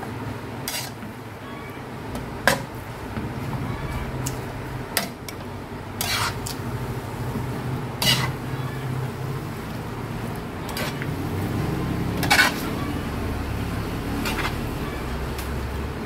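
Metal spatula stir-frying sotanghon noodles and cabbage in a wide metal pan: the noodles are scraped and tossed, with about eight sharp clanks of the spatula against the pan, one every second or two. A low steady hum runs underneath.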